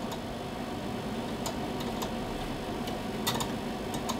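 Steady low background hum and hiss, with a few faint, light clicks scattered through it.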